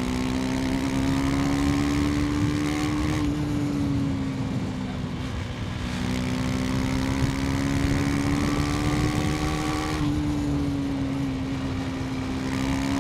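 KTM 250 Duke's single-cylinder engine under way, its pitch climbing slowly with the throttle, easing off about three seconds in, then climbing again and easing once more near ten seconds.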